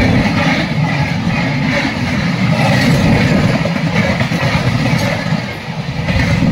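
Steady rumble of a train running on the rails, heard at an open carriage window, with the coaches of another train passing on the next track.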